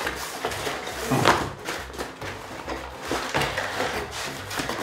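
Pizza boxes being shuffled around, sliding and scraping with a few knocks, the loudest about a second in.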